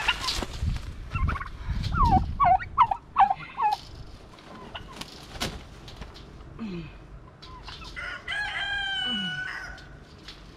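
Turkey calling in a quick run of short, falling yelps, with low thumps, during the first few seconds. About eight seconds in a rooster crows once in a long, drawn-out call.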